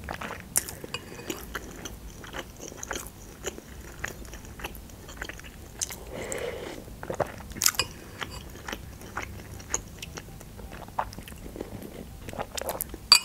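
Close-miked eating: spoonfuls of borscht slurped and chewed, with many short wet mouth clicks and lip smacks and a metal spoon scraping and clinking on a glass bowl.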